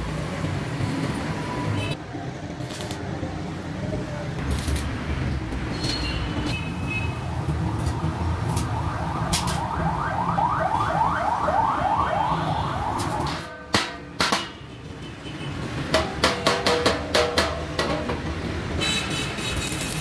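Sheet-metal workshop noise from steel water-heater tank fabrication: a steady low rumble with scattered metallic clicks, two loud knocks just past the middle, then a quick run of ringing metal strikes, about five a second, for a couple of seconds.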